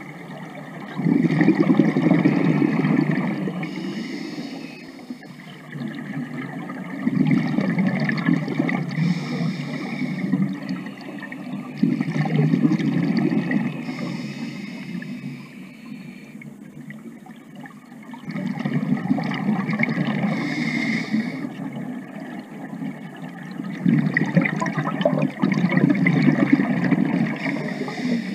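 Scuba diver breathing through a regulator underwater: exhaled bubbles gurgle in five loud bursts about every five to six seconds, with softer hissing between them.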